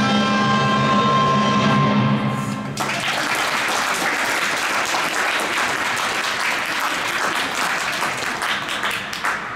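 The skater's program music, held chords, cuts off about three seconds in. An audience in the rink then applauds steadily until near the end.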